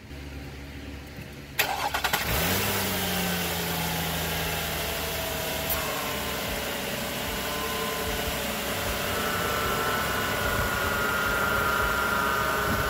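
A 2006 Nissan Murano's 3.5-litre V6 is cranked and starts about one and a half seconds in. It catches quickly, its revs rise briefly and then settle into a steady idle. A faint, higher whine joins the idle about nine seconds in.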